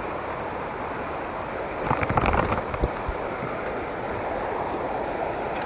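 Steady rushing of a shallow river riffle. A brief, louder, irregular burst of noise comes about two seconds in.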